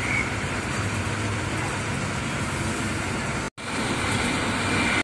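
Cabin noise inside a moving bus with open windows: the engine's low steady drone under rushing wind and road noise. The sound cuts out for a split second about three and a half seconds in.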